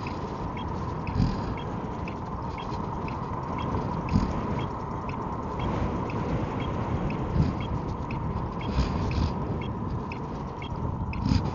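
Wind buffeting the microphone in gusts, with a few brief low thumps, over a steady single-pitched whine from the Emove Roadster electric scooter's motor.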